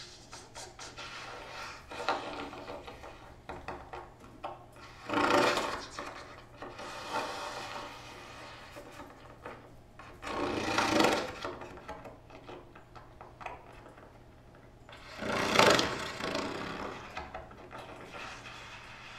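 Crackling, rubbing noises of daisies and a small glass vase being handled close up, with three louder rushing swells of noise about five seconds apart.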